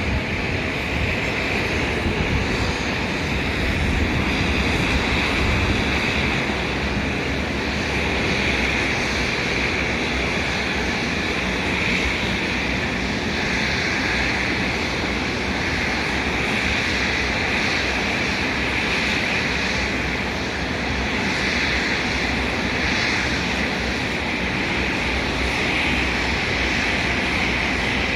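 McDonnell Douglas MD-10-30F freighter's three General Electric CF6-50 turbofan engines running loud and steady for takeoff.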